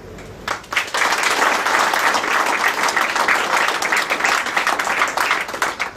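Audience applauding: a few scattered claps, then steady dense clapping from many people that stops just before the end.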